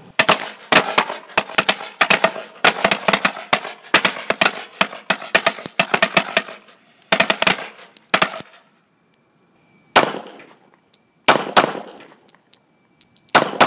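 A string of firecrackers going off: a fast, irregular run of sharp cracks lasting about eight seconds. After a short pause come a few single loud bangs spaced a second or more apart.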